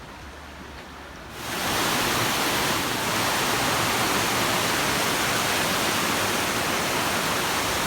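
Waterfall rushing: a steady, even roar of falling water. It is softer at first and rises sharply to full loudness about a second and a half in.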